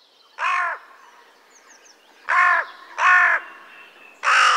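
A crow cawing four times, the caws spaced unevenly, the last one longer and louder.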